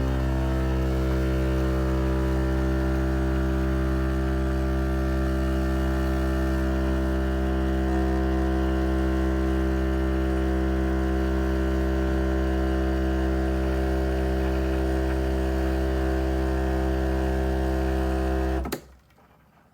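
Pump of a Breville Barista Express espresso machine running with a steady buzzing hum, then cutting off abruptly near the end.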